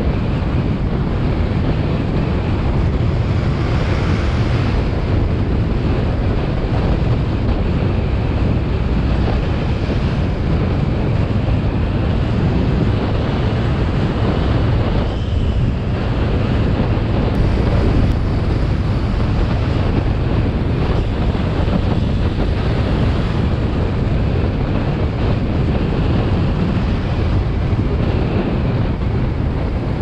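Steady wind rush buffeting the microphone on a moving Kymco KRV 180 scooter, with the scooter's engine running underneath.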